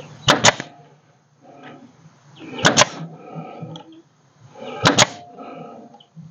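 Pneumatic crown stapler firing 3/4 inch crown staples through wire mesh into wooden studs: three sharp double cracks, about two seconds apart.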